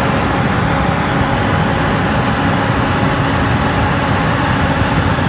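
Gas burner of a pellet dryer running with its electric blower fan: a loud, steady rushing noise with a faint even hum.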